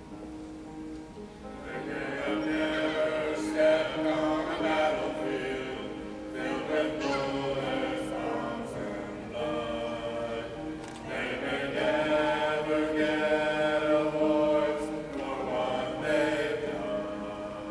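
A small family group of mixed men's, women's and children's voices singing a hymn-like song in harmony, unaccompanied. The voices come in about two seconds in.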